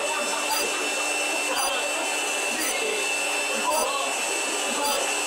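Leaf blower running steadily with its nozzle held in a man's mouth: a steady rush of air with a constant whine over it. A faint tick sounds about once a second.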